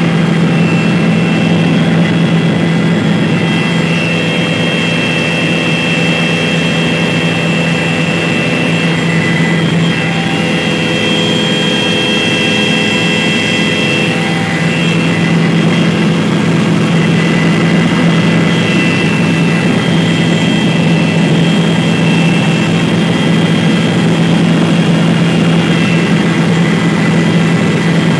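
Helicopter in flight heard from inside the cabin: a loud, steady engine and rotor drone, a constant low hum with thin high whining tones above it.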